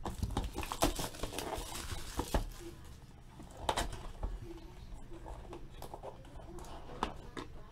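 Hands opening and handling a small cardboard trading-card box: cardboard rustling, scraping and tearing with short clicks, busiest in the first couple of seconds and then sparser.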